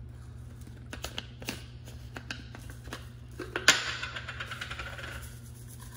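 Small clicks and taps of a plastic garlic salt shaker being handled and its cap taken off, then a sharp click nearly four seconds in followed by a brief hiss that fades out.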